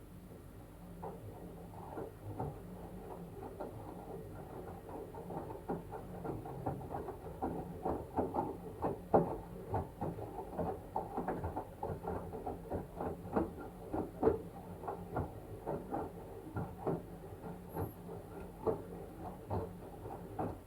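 LG washing machine drum turning a wet blanket: irregular splashes and soft knocks of the heavy, soaked load falling, several a second. They build over the first few seconds and stop suddenly near the end.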